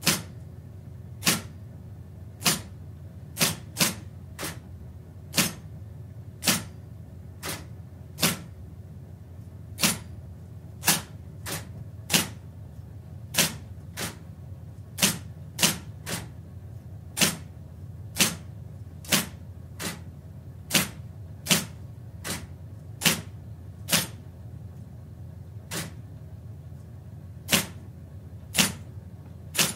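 Electric typewriter typed slowly with one finger: single sharp key clacks at uneven intervals, roughly one a second, sometimes two close together, over a steady low hum. Heard from about four metres away.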